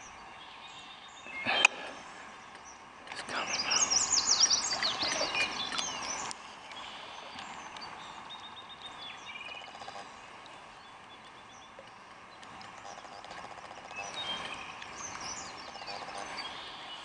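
A hooked largemouth bass splashing and thrashing at the water's surface for about three seconds as it is reeled out of a fallen tree, after a sharp knock about a second and a half in. Songbirds call faintly in the background.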